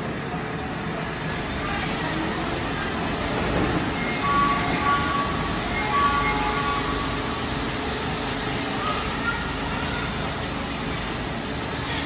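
Osaka Monorail train departing a station with platform screen doors. A short chime of steady tones sounds about four to six seconds in. Around nine seconds the train's motor whine rises in pitch as it starts moving away.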